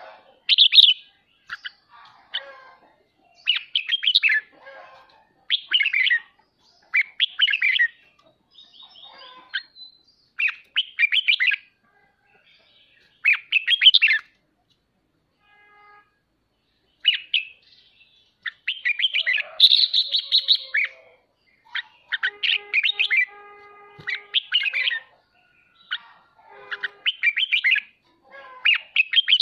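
Red-whiskered bulbul giving its harsh chattering 'ché' calls: short, dense bursts repeated every second or two. A few steadier held notes come a little past two-thirds through.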